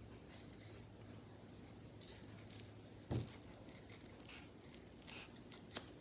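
Scissors snipping faintly through the seam allowance of quilted cotton fabric and batting, clipping the excess around a sewn curve: a series of short, crisp snips, with a low knock about three seconds in.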